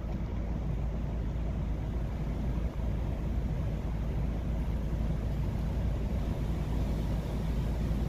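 Strong wind buffeting the microphone: a steady low rumble.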